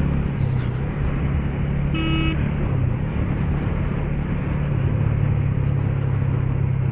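Motorcycle engine running at a steady riding speed, with wind and road noise. A vehicle horn gives one short toot about two seconds in.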